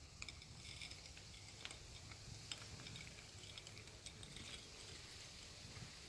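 Faint, irregular wet clicks of a cat licking its fur while grooming, over a low steady background rumble.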